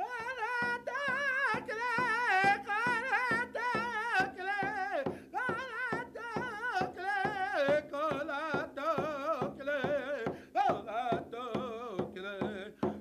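Plains Indian sun dance chanting: a high, wavering sung melody whose phrases step down in pitch, over a steady drumbeat.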